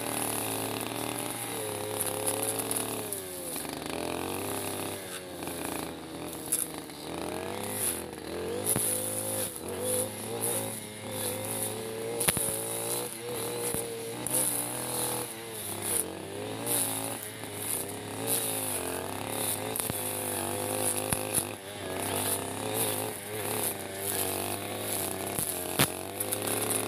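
Backpack two-stroke brush cutter running with a metal blade through tough grass, its engine speed rising and falling as it cuts. There are a few sharp clicks.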